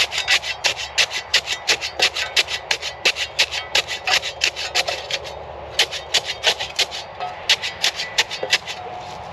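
Rapid, rhythmic scraping, about three or four short strokes a second, with a brief pause about five seconds in.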